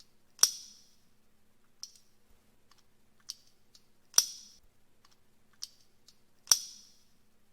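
A series of sharp clicks at uneven intervals, about six in all, three of them louder with a brief ringing tail, over a faint steady low hum.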